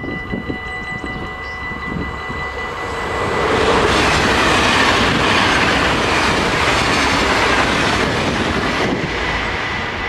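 Level-crossing warning bells ringing steadily. About three seconds in, a double-deck electric passenger train comes through, and the rush of its wheels on the track rises to drown the bells. The train noise stays loud for several seconds, then eases near the end.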